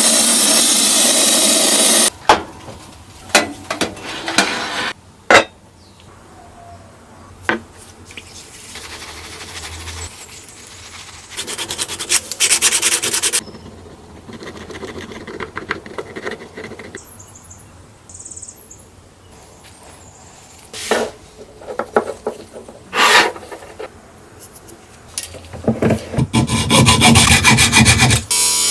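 Abrasive scraping strokes, like filing or sanding, on a pressed-steel Tonka toy pickup, coming in three loud stretches near the start, the middle and the end. Scattered knocks and clicks of tools and parts are heard between them.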